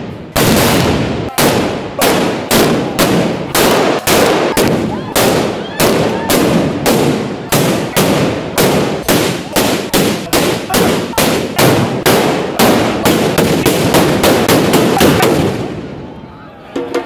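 Loud bangs from a small wheeled festival cannon firing gunpowder charges, one after another about two a second, coming faster in the later part and stopping shortly before the end.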